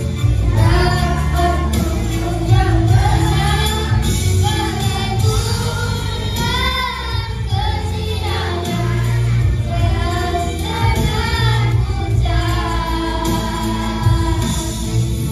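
A group of children singing together in unison, with accompanying music underneath.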